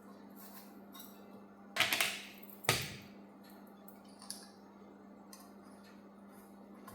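Household handling sounds: a short clatter, then a single sharp knock, over a faint steady hum.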